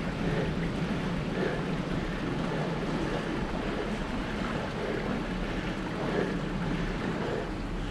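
Steady wind rushing over the microphone of a camera mounted on a bicycle climbing a steep road.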